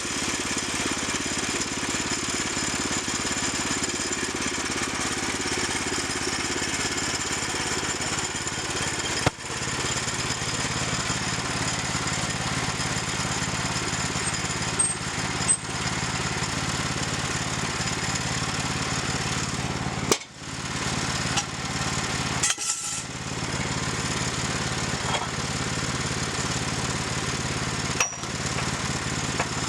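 Small gasoline engine of a sawmill running steadily under load while milling planks, dropping out for a moment a few times.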